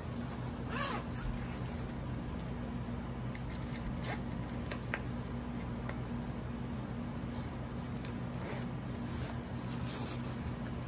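Nylon backpack lining rustling and an inner zipper being drawn as hands open and search the bag's compartments, with the clearest zip about a second in, over a steady low hum.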